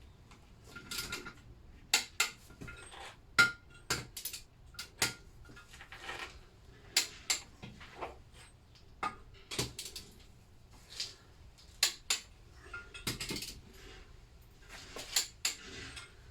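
Torque wrench and socket working on the Lister D's cylinder head nuts: sharp, irregular metallic clicks and clinks, a few of them ringing briefly, as the nuts are brought to an even final torque.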